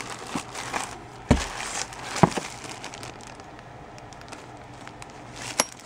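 Plastic parts bags crinkling and rustling as hands rummage through a plastic tub of bagged engine parts, with a few sharp clicks: one about a second in, one about two seconds in, and one near the end.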